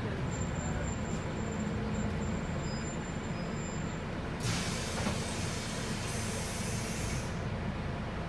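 Volvo 8900LE bus on a B7RLE chassis, its six-cylinder diesel idling steadily, heard from inside the cabin. About halfway through, a loud hiss of compressed air from the bus's pneumatics lasts about three seconds, strongest at the start.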